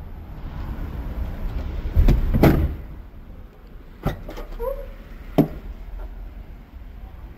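A car door shutting with a thud about two seconds in, then sharp clicks as the Seat Altea XL's tailgate latch releases and the tailgate is lifted open, with a short squeak between the clicks. A low rumble of handling noise runs underneath.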